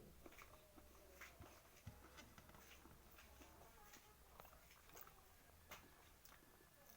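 Faint chewing: soft mouth clicks and smacks, scattered irregularly, as someone eats.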